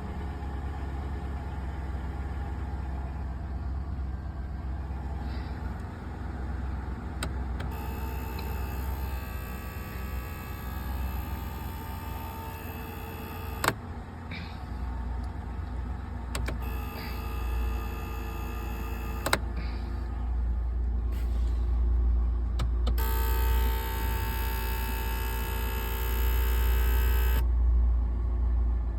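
Intermittent electrical buzz in a 2003 Lincoln Town Car, switching on and off abruptly in three stretches of several seconds each, over a steady low rumble. Two sharp clicks come partway through.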